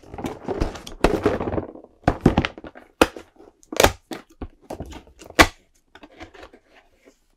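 Cardboard advent calendar box being handled: about two seconds of rubbing and scraping as it is turned over, then four sharp knocks and some lighter taps as fingers press and tear open a perforated cardboard door.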